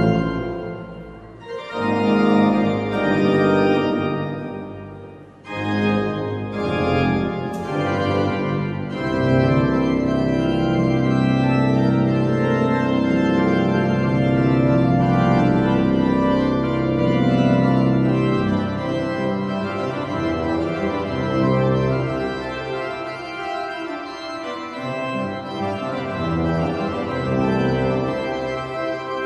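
Organ music: sustained chords that change every few seconds, over a long held low bass note from about nine seconds in, growing softer near the end.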